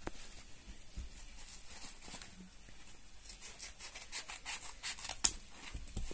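Scissors cutting open a plastic mailing pouch: a quick run of short snips in the second half, the sharpest about five seconds in, after quieter rustling of the plastic as it is handled.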